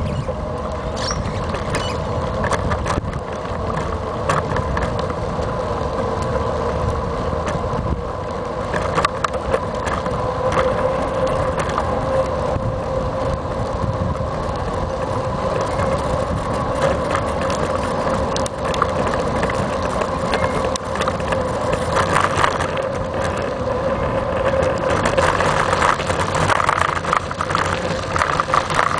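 Riding noise picked up by a camera mounted on a moving bike: a continuous rumble with frequent rattling clicks and knocks, over a steady hum that barely changes pitch. The knocking gets busier in the last several seconds, as the bike rolls onto gravel.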